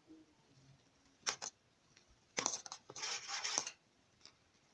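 A spoon stirring coconut milk with tapioca pearls in a pot: two light clicks against the pot about a second in, then about a second of scraping and stirring noise.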